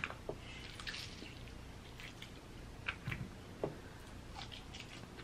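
Faint wet squishing and dripping as a lemon half is squeezed over a piece of lobster tail meat, then a few soft wet clicks as the meat is bitten into.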